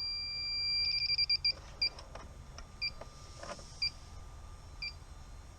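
Electronic combustible-gas leak detector sounding a steady high tone. About a second in it breaks into a quick run of beeps, then slows to about one beep a second. It is sensing traces of R290 propane refrigerant, and the signal is weak.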